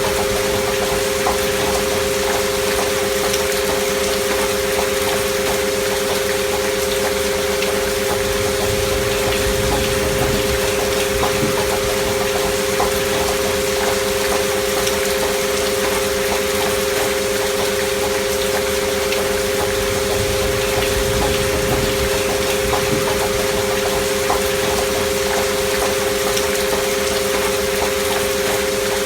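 Two steady pure tones close together near 500 Hz, a binaural healing-frequency drone, held unchanging over the even hiss of gentle rain with scattered drop ticks.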